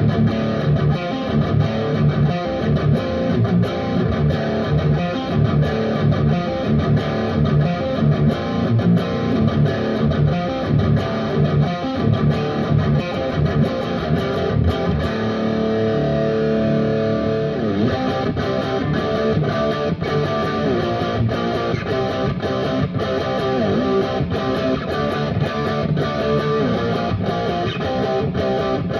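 Electric guitar played through a Becos FX CompIQ Mini Pro analog compressor pedal: a steady run of picked notes and chords, easing into held, ringing notes about halfway through before the picking resumes.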